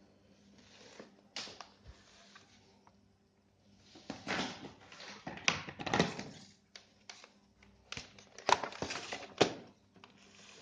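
Handling noise: rustling and scraping, with several sharp clicks, heaviest in the second half.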